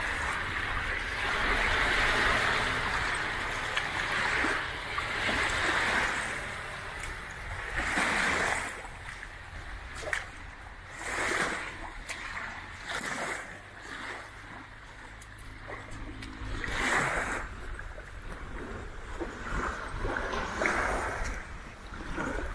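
Small waves washing and splashing on a beach, in irregular swells every second or few, with a low steady rumble underneath.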